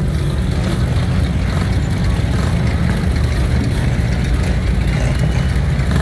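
Motor vehicle engine running, a steady low rumble.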